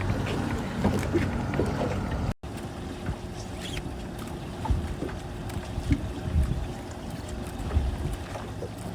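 A boat's motor running steadily at sea, with wind and water noise and a few light knocks.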